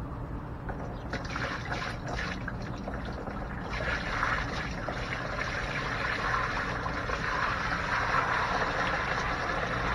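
Water poured from a plastic bucket into a shallow plastic storage bin, splashing onto the bin's bottom. It starts as a trickle about a second in and becomes a heavier, steady pour from about four seconds on.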